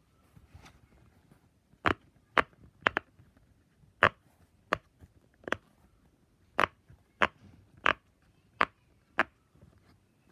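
A fidget toy being clicked or popped by hand: about eleven sharp separate clicks, roughly one or two a second, starting about two seconds in.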